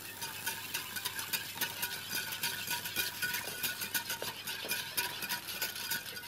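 Wire whisk stirring a cream sauce in a small pan: rapid, steady metal scraping and ticking against the pan.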